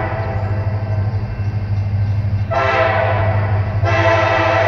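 Diesel locomotive air horn of an approaching CSX coal train, several tones sounding together. After a pause there is a short blast about two and a half seconds in, then a long blast starting near the end, the closing short and long of the crossing signal. A steady low rumble runs underneath.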